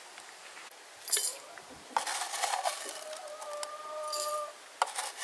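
Metal teaspoon clinking and scraping in a tin tea caddy as loose black tea is scooped out, with a sharp clink about a second in and another near the end. A steady tone sounds for about a second in the middle.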